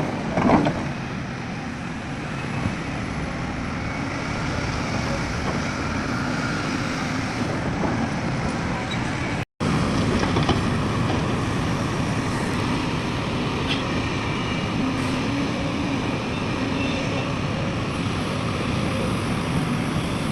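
Heavy diesel earthmoving machinery, an excavator and dump truck, running steadily. The sound cuts out for an instant about halfway through.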